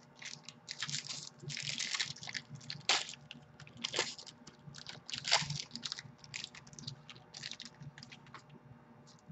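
Plastic wrapper of a trading-card pack crinkling as hands open it and handle the cards: a run of short, irregular rustles with two sharper snaps about three and four seconds in, thinning out near the end.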